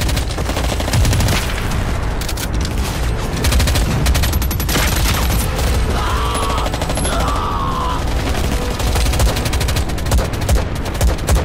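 Battle gunfire: dense, rapid rifle and machine-gun fire with heavy explosions. Men shout in the middle.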